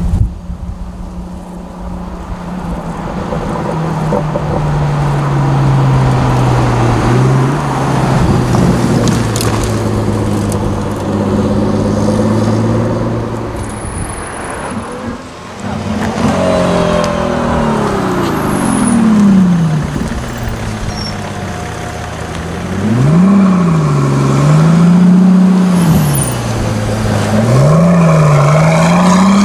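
Pagani Huayra BC's twin-turbo V12 running at low revs as the car drives along, then revs falling away in long glides, and near the end revved up and down several times in quick blips.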